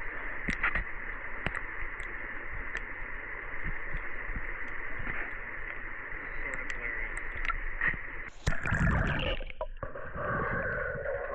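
Creek water heard through a camera held underwater: a steady, muffled rush with scattered small clicks and ticks. About eight and a half seconds in, a louder, fuller burst of churning lasts about a second.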